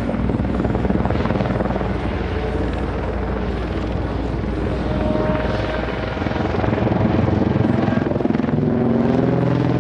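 Eurocopter EC120B Colibri light helicopter with a single turboshaft engine, flying aerobatic manoeuvres. Its main rotor gives a steady low beat and the engine a higher whine, with tones shifting in pitch as it turns and dives. It grows louder in the second half.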